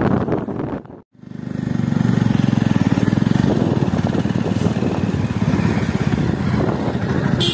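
Motorcycle engine running steadily with a rapid even pulse, cut off by a sudden gap of silence about a second in before the engine sound resumes.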